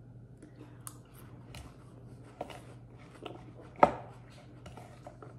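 A spoon clicking and scraping in a mixing bowl while someone chews a mouthful of fresh pico de gallo, with one louder knock about four seconds in.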